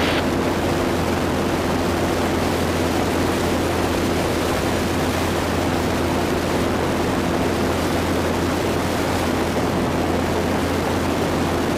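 Zenith STOL CH 750 Super Duty's piston engine and propeller running steadily at climb power, an even drone with a constant low hum.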